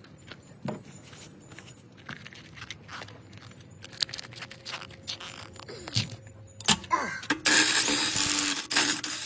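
Scattered clicks, knocks and scrapes of tools and metal parts being handled, then about seven seconds in a loud, steady, hissing whir from a tool that runs for about two seconds.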